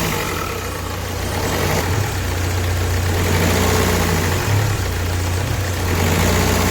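Ford Figo diesel engine running with a misfire, one cylinder missing, which a scan traces to an injector 3 circuit fault (code P0203). The engine pitch rises and falls slowly a few times.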